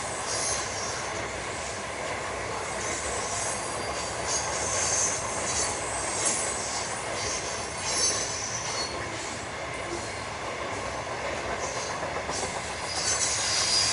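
Aurizon AGUY grain hopper wagons rolling past on the rail: a steady rumble of wheels on track with a few clacks, and a high-pitched wheel squeal that comes and goes and grows louder near the end.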